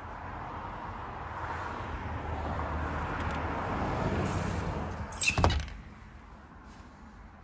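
Street traffic noise coming through an open sliding glass balcony door, then the door slid shut with a sharp bang and rattle about five seconds in, after which the outside noise drops away.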